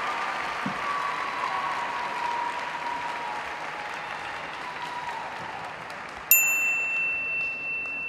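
Audience applause in an ice rink, fading away over several seconds. About six seconds in, a single bright electronic ding starts suddenly and holds as one steady high tone.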